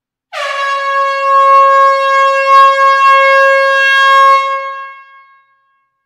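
Vehicle air horn blowing one long, loud blast: a steady tone with a brief downward slide in pitch as it starts, held for about four seconds and then fading away over the last second.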